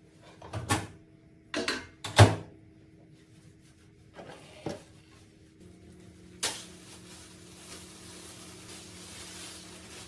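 Kitchen handling sounds: a few sharp knocks and clatters, like cupboard doors or drawers being shut, the loudest about two seconds in. About six and a half seconds in, a steady hiss sets in and keeps going.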